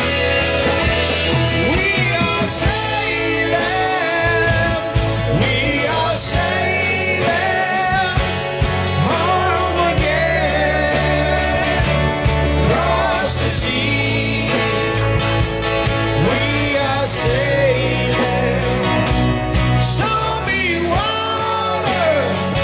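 Live classic rock band playing electric guitars, keyboard and drums to a steady beat, with a man singing lead vocals.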